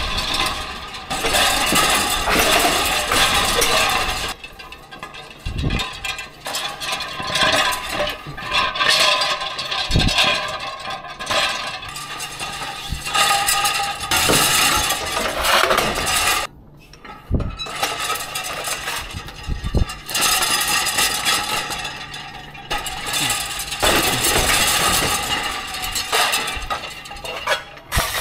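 Wire racks full of glass charger plates rattling and clinking as they are pulled off a cart and stacked, in several stretches of a few seconds with short pauses between.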